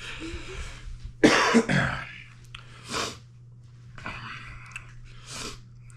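A man coughing and clearing his throat, the loudest cough about a second in, with several short hissing breaths around it: his reaction to the burn of an extremely hot cinnamon lollipop on his tongue and lips.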